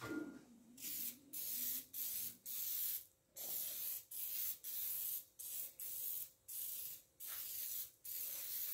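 Aerosol can of Easy-Off oven cleaner spraying in about a dozen short hissing bursts with brief gaps, then one steady spray near the end.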